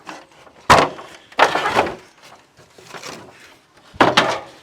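Ladders being handled and set down: a sharp knock, then a longer clatter about a second and a half in, and two quick knocks near the end.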